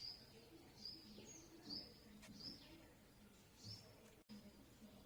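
Faint, short, high bird chirps repeating about once a second over low background noise.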